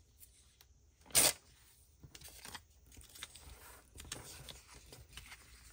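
Old book-page paper torn along a deckle-edge tearing ruler: one short, sharp rip about a second in, followed by soft rustling as the paper pieces are handled on the mat.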